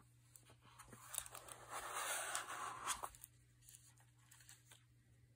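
Faint rustling and scraping of foam as a wristwatch on a steel link bracelet is pulled out of its foam box insert, with a few light clicks.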